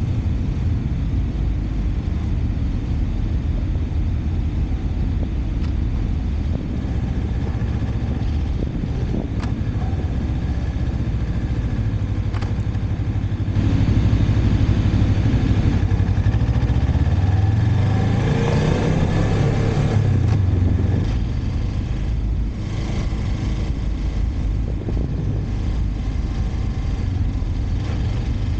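Motorcycle engine running while riding, heard from on the bike with a steady rush of wind and road noise. About halfway through it gets louder for several seconds, the engine note rising as the bike accelerates, then settles back to a steady cruise.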